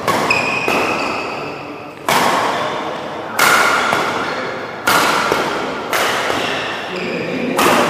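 Badminton rackets striking a shuttlecock back and forth in a doubles rally: seven sharp hits about a second or so apart, each ringing on in the echo of a large hall.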